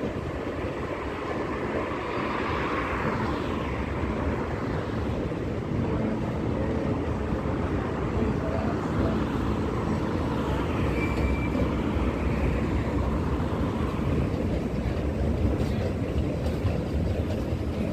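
Steady, fairly loud rumble of vehicle noise with a hiss over it, swelling twice, once about two seconds in and again about ten seconds in.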